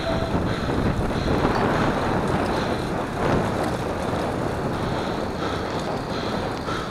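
Wind buffeting the microphone of a camera carried on a moving road bike: a steady rushing noise from riding on a windy day.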